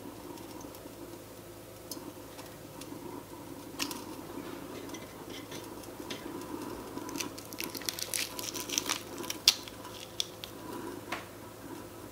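Small wooden spoon stirring in a miniature copper saucepan, scraping and tapping lightly against the pan, over a steady low hum. The taps get busier past the middle, with one sharp knock about two thirds of the way through.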